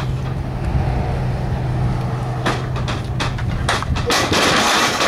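Pro wrestling bout in an outdoor ring: several sharp knocks and thuds, then a loud crash of bodies about four seconds in as a wrestler dives off the top rope onto his opponent. A steady low hum runs underneath.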